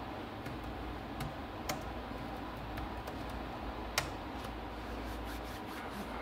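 Computer keyboard keystrokes clicking, scattered single taps with one louder click about four seconds in and a run of faint quick ticks near the end, over a steady low background hiss.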